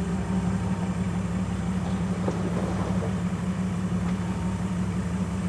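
Four-wheel-drive vehicle engine running steadily at low speed on a rocky off-road trail: an even low drone.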